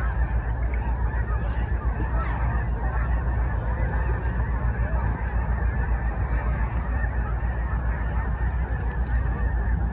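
A large flock of geese honking in flight, many birds calling over one another in a dense, continuous chorus, with a steady low rumble underneath.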